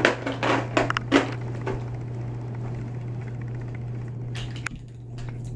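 A quick run of light knocks and clicks as plastic toys are handled and bumped together, with a couple more sharp clicks near the end, over a steady low hum.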